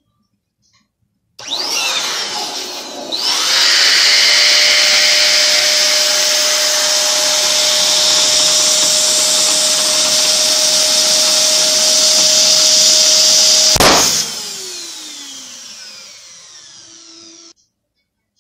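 Electric balloon pump starts about a second and a half in and runs loudly, inflating a latex balloon, with a steady tone in its noise. About 14 seconds in, the balloon bursts with a sharp pop, and the pump then winds down, its pitch falling, and stops shortly before the end.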